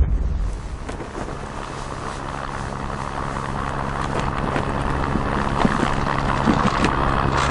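Airliner cabin noise heard at a passenger window: a steady jet engine and airflow rumble with a low hum, slowly growing louder.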